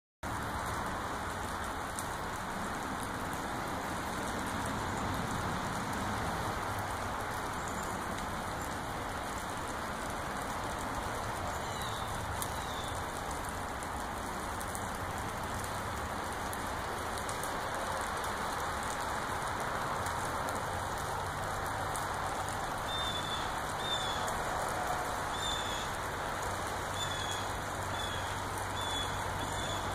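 A steady, even rushing hiss. A faint low hum comes in about two-thirds of the way through, and short high chirps repeat about once a second near the end.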